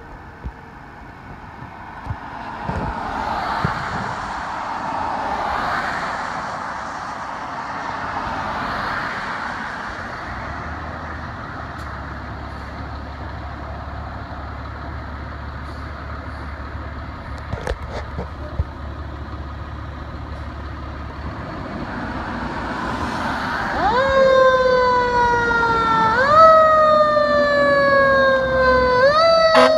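Traffic and engine noise, then about 24 seconds in the fire engine's siren starts up. Each time its pitch rises quickly and then falls away slowly, every two to three seconds, and it gets louder as it goes.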